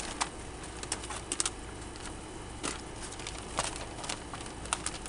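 Wrapping paper crinkling and rustling as it is pulled open and handled, a scatter of short crackles over a steady low hum.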